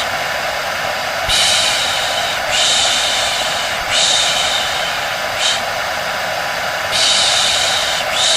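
Repeated 'shh' shushing, about once every second and a half, over a hair dryer running steadily: a white-noise mix for soothing a baby to sleep.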